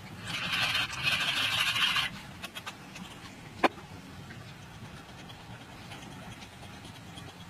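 A small hand-held jar or container being worked: a rough rasping scrape lasting about two seconds, then a single sharp click about a second and a half later.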